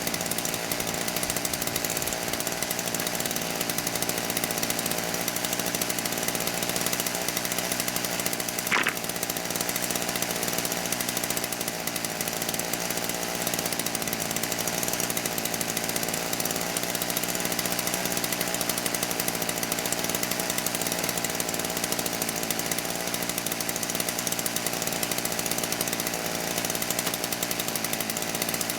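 Chainsaw running steadily under load, cutting sawmill slab wood into firewood lengths, with one short sharp click about nine seconds in.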